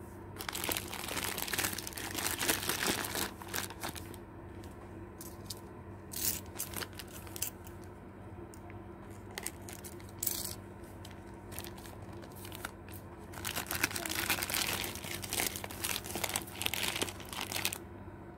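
Plastic gift wrapping crinkling and tape tearing as a taped package is handled and unwrapped. It comes in irregular bursts, heaviest in the first few seconds and again over the last five seconds, over a steady low hum.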